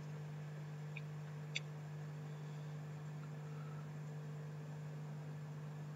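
Faint room tone: a steady low hum with light hiss, and a small tick about a second and a half in.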